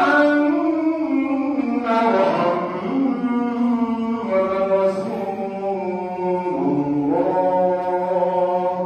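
A man's voice chanting the Islamic call to prayer (adhan) in the Tunisian melodic modes. It is one long, ornamented phrase of held notes that shift in pitch several times, and near the end it trails off into the echo of a large hall.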